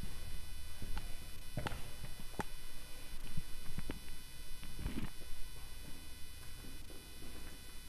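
Irregular footsteps and a few knocks from handling a camera while walking, over a steady faint background hum.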